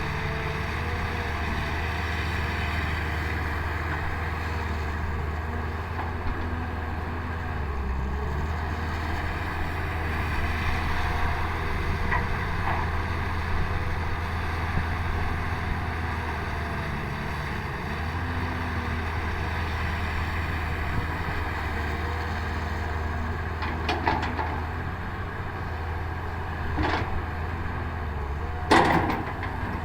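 Hydraulic excavator's diesel engine running steadily under working load, with a few sharp knocks near the end, the loudest just before the end.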